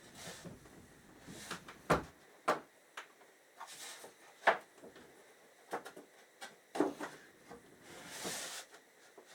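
Wooden panels being shifted and set level by hand: a string of irregular knocks and clicks of wood on wood, with short scrapes, the loudest knocks about two seconds and four and a half seconds in.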